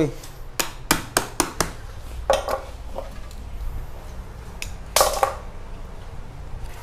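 Steel wire being handled and cut with hand cutters: a quick run of sharp metallic clicks in the first two seconds, a few softer clinks, then a louder short snip about five seconds in.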